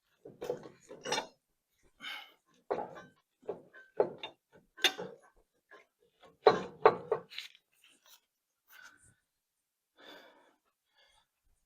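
Metal hand tools and sockets clinking and knocking in short, irregular strikes while a bolt is worked loose, loudest a little past halfway.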